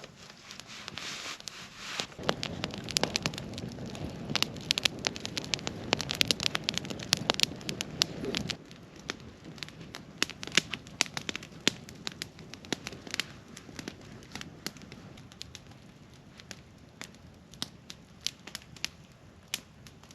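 Freshly lit wood campfire crackling, with many sharp snaps and pops. For the first several seconds a low rushing sound runs under the crackle, stopping suddenly about eight seconds in.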